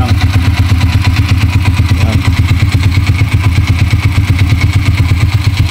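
Vperman 150 motorcycle's single-cylinder, air-cooled four-stroke engine idling steadily, freshly top-overhauled with a new piston kit.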